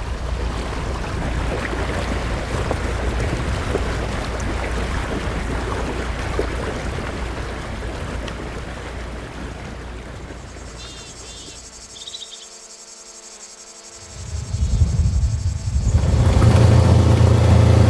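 Layered sound-effect track for a drone dive. A steady rushing noise with a low rumble fades over the first ten seconds or so, and a few short high chirps come about eleven seconds in. Then a loud low rumble swells from about fourteen seconds and cuts off suddenly at the end.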